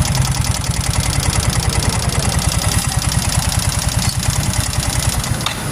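Yamaha motorcycle engine idling with a fast, even pulsing beat.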